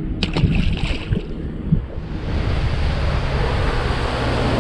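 Skeeter bass boat running at speed, with a steady rush of wind and water over the hull and a low drone beneath. The rush comes in about two seconds in, after a low rumble with a couple of sharp clicks.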